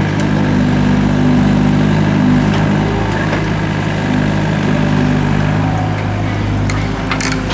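Doosan DX55W wheeled excavator's diesel engine running steadily while the bucket digs soil and brick rubble. A few brief knocks from the bucket and rubble come about two and a half seconds in and again near the end.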